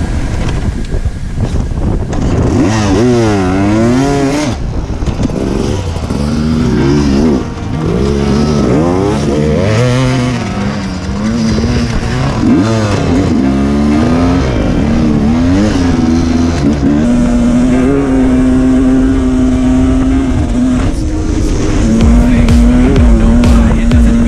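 Sherco two-stroke enduro dirt bike engine heard from the onboard camera while racing, its revs rising and falling over and over with the throttle and gear changes, then held fairly steady for the last several seconds.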